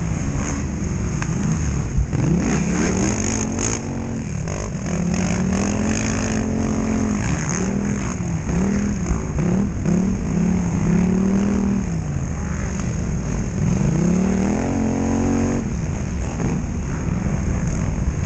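Polaris Scrambler XP 1000 quad's twin-cylinder engine revving up and falling back again and again as the rider accelerates and lets off, with a quick run of short blips in the middle.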